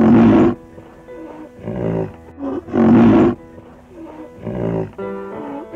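Rhinoceros giving a run of loud, rough calls, one about every second and a half, over soft background music.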